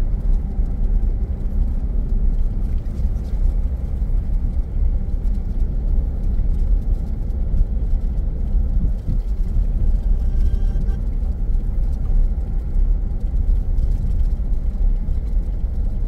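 2021 Jeep Grand Cherokee Trailhawk driving on a dirt track, heard from inside the cabin: a steady low rumble of the engine and the all-terrain tyres.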